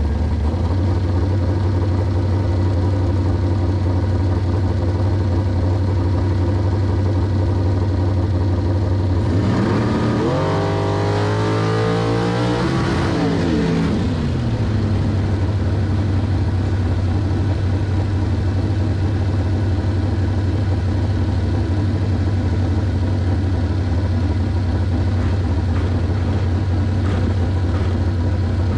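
Dragster engine idling steadily and loudly, heard from the cockpit. About ten seconds in, an engine revs up for roughly four seconds, its pitch rising, then drops back to the idle.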